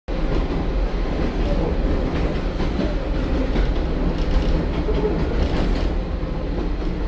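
Inside the cabin of a KiHa 47 diesel railcar under way: a steady rumble from the diesel engine and running gear, with the wheels clicking over the rails.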